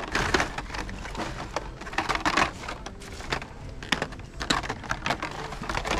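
Hot Wheels blister-card packages clicking and crackling against one another on a display peg as they are flipped through by hand, in uneven bursts.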